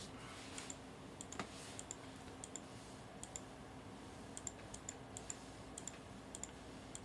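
Computer mouse button clicked repeatedly: about a dozen faint, sharp clicks at uneven intervals of roughly half a second to a second, over a low steady hum.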